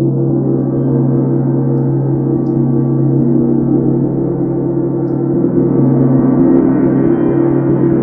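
A 32-inch UFIP brass symphonic tam-tam played with a mallet, ringing in a dense, sustained wash of deep tones. Its upper shimmer slowly builds and brightens as the sound blooms.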